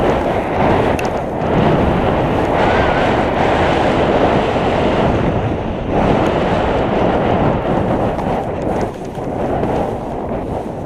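Wind rushing hard over an action camera's microphone as a skier runs downhill, with the skis hissing and scraping over wind-packed snow. The noise surges and eases slightly about nine seconds in.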